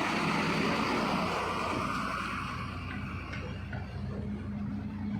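A vehicle engine running steadily, with a hiss of tyre or road noise that fades about two seconds in.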